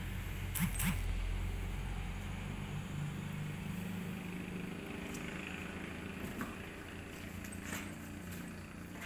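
A low, steady motor hum that is loudest about a second in and slowly eases off, with a few sharp scratches and taps of kittens' claws on a cardboard box, two near the start and a couple more later.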